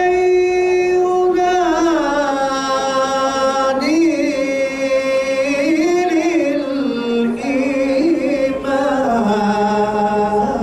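A man chanting slowly into a handheld microphone, unaccompanied, holding long notes that waver and slide from pitch to pitch.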